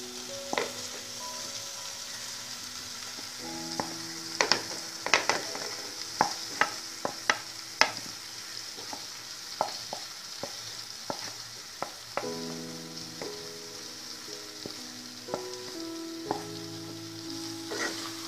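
Potato chunks and masala sizzling in an oiled pan, with a spatula knocking and scraping against the pan a dozen or so times, mostly in the middle stretch.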